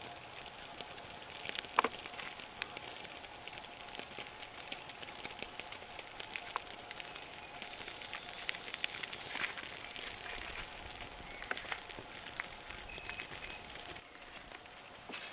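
Small wood campfire crackling, with scattered irregular pops and snaps as a banana-leaf-wrapped egg parcel grills on its embers.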